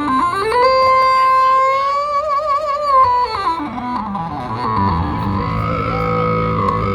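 Marching band brass playing. A note scoops up into a long held note that wavers about two seconds in, then the line steps down into low notes. A new held note comes in near the end.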